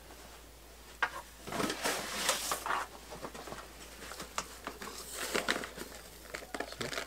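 A plastic bag of fine decorative gravel being picked up and handled, the bag rustling and crinkling. A sharp click comes about a second in, then a stretch of rustling, then scattered small crackles near the end.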